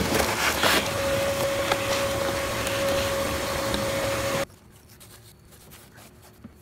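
Vacuum cleaner running with a steady whine as its hose nozzle sucks dirt off a bare car floor pan, then cutting off suddenly about two-thirds of the way in. Faint handling noise and a few small clicks follow.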